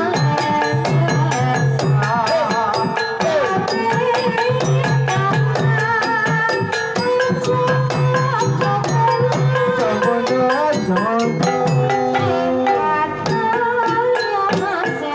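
Live Banyumasan gamelan playing a gending: quick kendang hand-drum strokes over bronze pot gongs, keyed metallophones and gongs, with a female sinden singing with vibrato.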